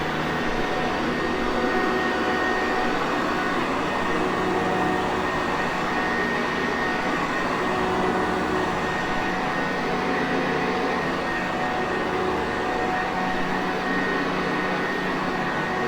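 Sanitaire Perfect vacuum cleaner running steadily: a constant motor whir and airflow noise at an even level, with a few faint steady tones above it.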